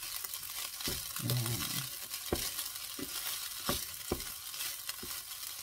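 Fried rice sizzling in a non-stick frying pan as a wooden spatula stirs and turns it, with several sharp knocks and scrapes of the spatula on the pan. The rice is cooked, its grains separating as they fry.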